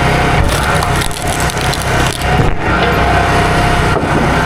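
Small gasoline engine running steadily under load, with wood cracking and splintering over it several times in the first half.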